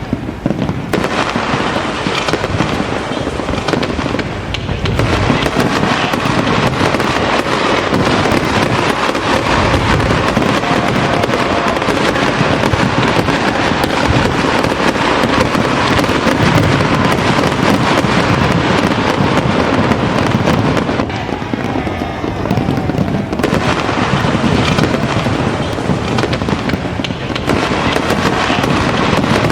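Fireworks display going off in a dense, continuous barrage of bangs and crackling, easing briefly twice before building again.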